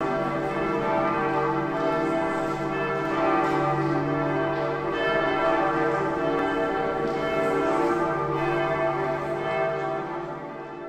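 Several church bells ringing together in a steady, dense peal, fading out near the end.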